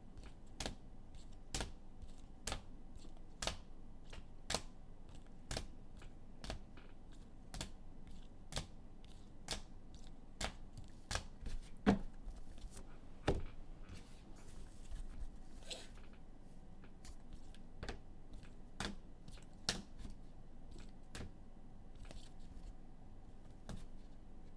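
Light clicks and taps of handling on a desk, roughly one a second with some irregular extras, a couple of louder knocks about twelve and thirteen seconds in, and a short rustle around fifteen seconds.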